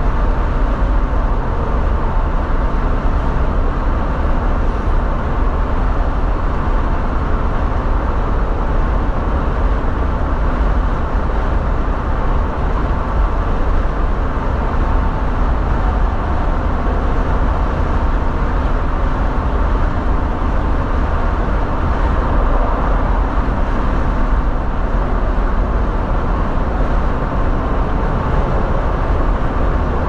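Steady road and engine noise heard inside a car's cabin while cruising on a freeway, a loud, even rumble with no change through the stretch.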